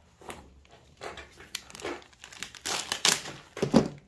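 Thin plastic bag crinkling and rustling as it is handled and opened, in irregular bursts, loudest about three seconds in.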